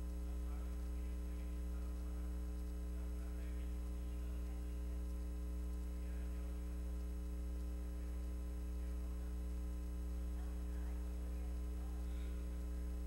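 Steady low electrical mains hum.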